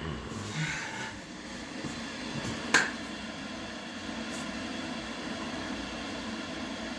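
A single sharp click about three seconds in, over steady background noise.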